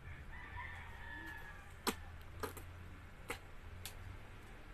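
A toddler chewing a fried snack close to the microphone: a few sharp mouth clicks and smacks, the loudest about two seconds in, over a low steady hum. Early on a faint drawn-out call sounds in the background.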